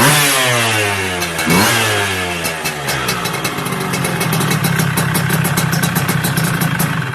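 Yamaha F1ZR two-stroke single-cylinder engine blipped twice, its revs falling away after each, then settling to a steady idle with a fast ticking rattle, before cutting off at the very end.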